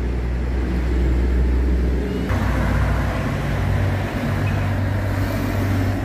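Street traffic: cars and a semi-trailer truck driving past. About two seconds in the sound changes abruptly to a steady low engine hum.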